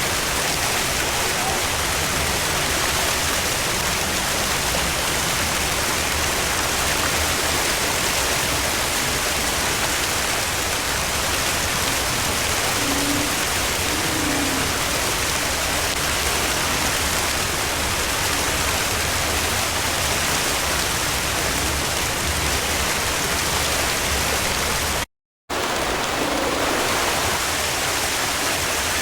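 Steady, even hiss of falling water, with a momentary break near the end.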